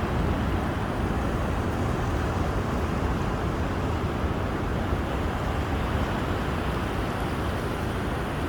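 Heavy ocean surf from big breaking waves, a steady even rush, with wind rumbling on the microphone.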